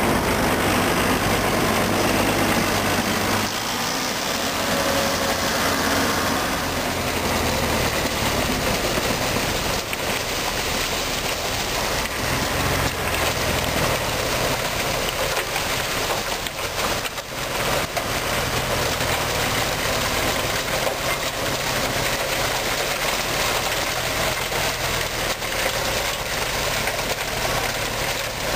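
Farm tractor's diesel engine running steadily while it drives a front-mounted snow blower, with the rushing noise of snow being thrown out of the chute over the engine note.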